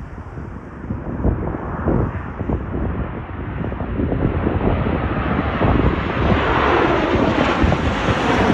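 Boeing 737 jet airliner on final approach, its engine roar growing steadily louder as it comes in low and close. Wind rumbles on the microphone at first.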